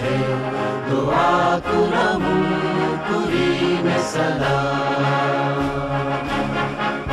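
Music with a choir singing in held notes.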